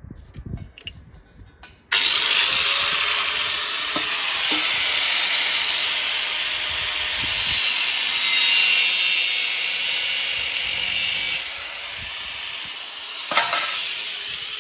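A power tool cutting into the Beetle's sheet-steel body panel: a steady, harsh cutting noise that starts suddenly about two seconds in, gets quieter about eleven seconds in and carries on, with a sharp knock near the end.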